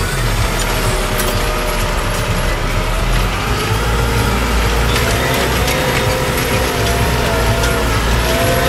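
Deutz-Fahr 6140 TTV tractor running steadily under load while it pulls a Kverneland CLC stubble cultivator through the soil, its engine drone mixed with the rattle of the cultivator's tines and frame and a wavering whine.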